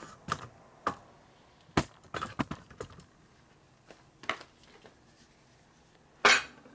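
Scattered sharp clicks and knocks of tools and crank parts being handled while a flywheel nut is set up for torquing, with a louder brief scrape or clatter about six seconds in.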